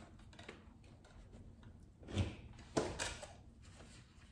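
Faint handling of a sneaker being pulled onto a foot by hand, with a soft knock about two seconds in and a sharp click near three seconds.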